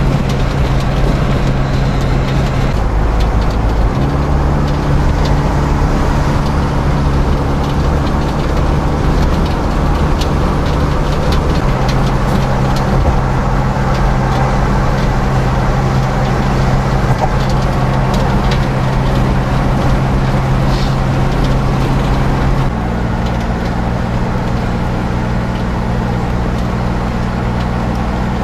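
A car driving at speed on a highway, heard from inside: a steady engine hum over road and wind noise. The engine's pitch shifts up or down a few times, as with gear changes.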